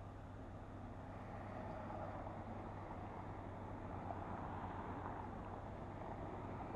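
Steady city street traffic noise with a low hum, getting slightly louder towards the end.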